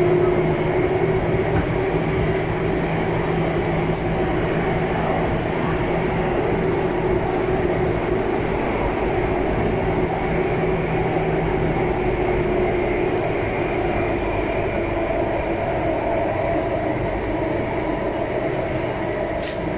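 Alstom Metropolis C830 metro train running between stations, heard from inside the car: a steady rumble of wheels on rail with a few steady humming tones. A low hum drops out about twelve seconds in, and there are a few light clicks.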